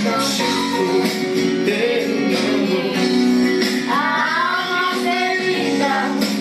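A recorded Brazilian gospel song playing, with guitar accompaniment and singing, and two young girls singing along.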